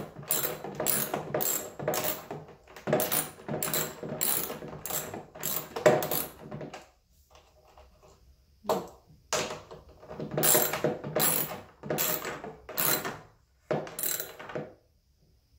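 Socket ratchet wrench clicking in quick back-and-forth strokes, about three a second, as a bolt is tightened. The strokes stop for about a second and a half past the middle, then start again.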